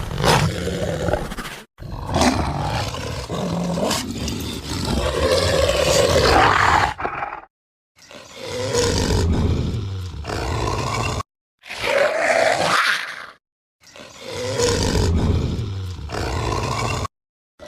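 A werewolf sound effect: five separate growling roars of varied length, deep and rough, each cut off into a short dead silence before the next.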